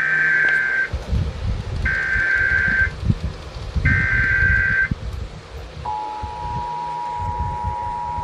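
Emergency Alert System SAME header: three bursts of data tones of about a second each, encoding a severe thunderstorm warning. About six seconds in, the steady two-tone EAS attention signal begins.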